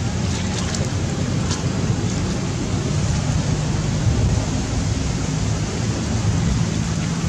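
Wind buffeting the camera microphone: a steady rumbling noise, heaviest in the low end. A few faint, short high sounds come through in the first two seconds.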